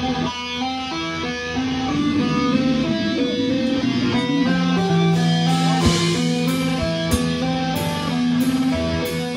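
Live rock band playing: electric guitars pick quick melodic note runs over bass and drums. A held low note comes in about halfway, and cymbal crashes hit several times in the second half.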